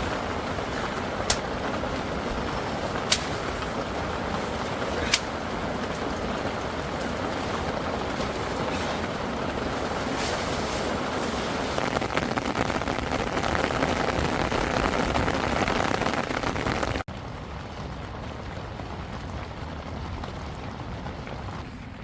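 Heavy rain falling steadily on an inflatable tent, a dense, even hiss, with three sharp clicks in the first five seconds. About 17 seconds in it cuts suddenly to a quieter, duller rain sound.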